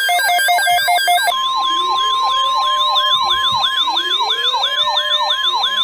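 NOAA Weather Radio alert tones: a rapid pulsing beep for about the first second, then the steady 1050 Hz warning alarm tone with a warbling siren sweeping up about three times a second over it, announcing an incoming tornado watch alert.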